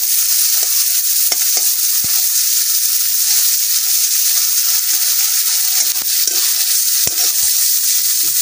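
Small shrimp sizzling steadily in hot oil in a wok while being stirred with a spatula that scrapes and taps against the pan now and then.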